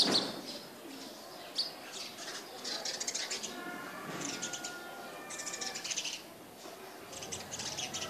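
Small birds chirping and twittering in quick high bursts that come and go every second or so, with a sharp click at the very start.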